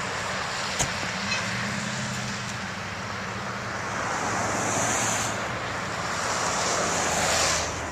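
Motor vehicle engine running with a steady low hum under road noise, which swells twice, about four to five seconds in and again near the end.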